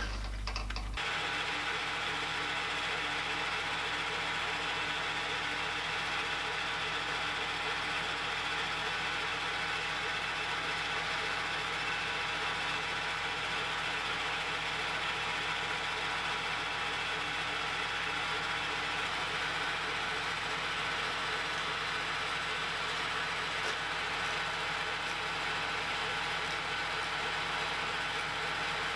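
Small metalworking lathe running steadily with a gear whine while it machines down the head of a 1/16-inch rivet.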